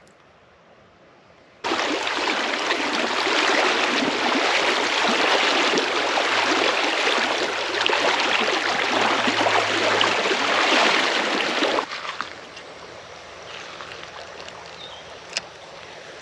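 Creek water rushing over rocks, loud and close. It comes in suddenly a couple of seconds in and cuts off abruptly about two-thirds of the way through, leaving a quieter, steady trickle with a few small clicks.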